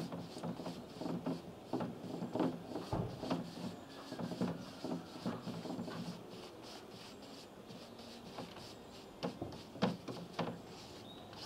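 A brush scrubbing back and forth across a plywood board as a coating is spread on, in quick repeated strokes for the first half, then fewer strokes with a couple of sharper scrapes later.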